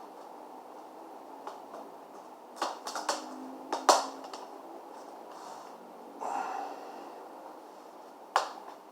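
A few sharp clicks and knocks from laptop parts being handled during reassembly. There is a cluster around three seconds in, the loudest about four seconds in, a brief scraping rustle around six seconds, and one more click near the end.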